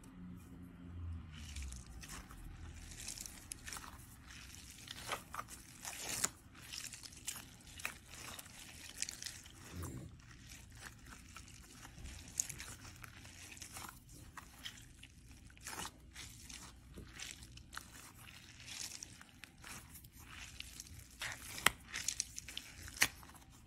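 Gel-bead stress balls, stretchy balls filled with water beads, being squeezed and kneaded by hand: irregular soft squeezing and rubbing noises from the rubbery skin, with a few sharper clicks near the end.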